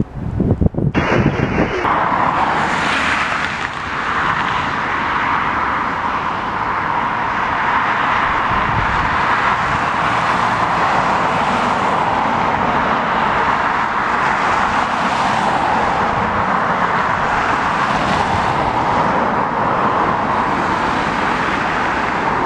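Wind buffeting the microphone for about the first two seconds, then the steady, even rush of a Boeing 737-700 BBJ's jet engines running at low power.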